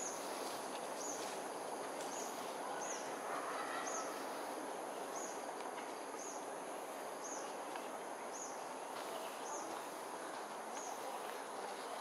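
Outdoor park ambience: a steady high insect drone and a short, thin, high chirp repeating about once a second, over constant background noise.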